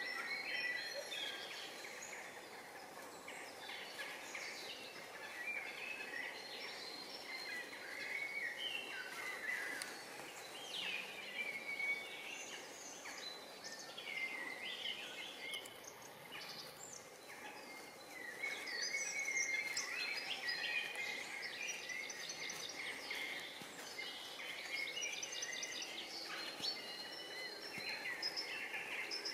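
Several wild birds singing and chirping over a faint steady background hiss, with the song getting busier in the second half.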